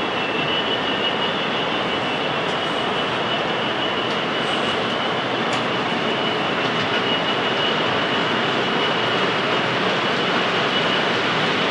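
OO gauge model train running out of sight on the layout: a steady rumble with a thin high whine, growing a little louder near the end as it approaches.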